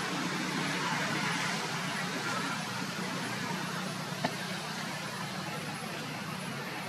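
Steady outdoor background noise with a low hum running under it, and a single sharp click about four seconds in.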